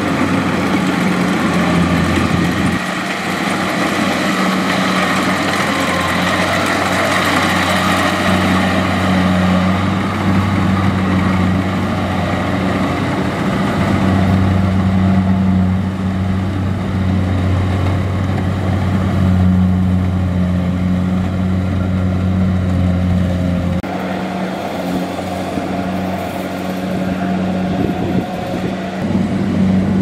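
Kubota DC70 combine harvester's diesel engine running steadily under load as it cuts and threshes rice, with the rattle of the threshing machinery over it. The low engine hum grows heavier about halfway through and eases again a few seconds before the end.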